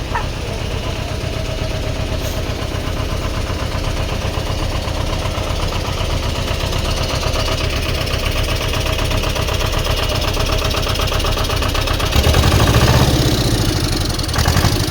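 Heavy vehicle's engine idling steadily with a fast, even knock, swelling louder and deeper for a couple of seconds near the end.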